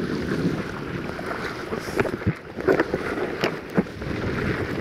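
Water rushing and splashing along the hull of a sit-on-top kayak under sail, with wind buffeting the microphone. A few short sharp sounds stand out in the middle.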